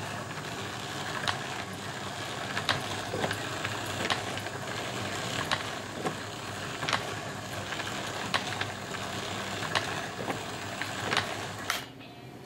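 Range ball striper running: a steady rattle from its roller chains and sprockets, driven by a variable-speed DC motor, with sharp clicks about once a second. The sound falls quieter near the end.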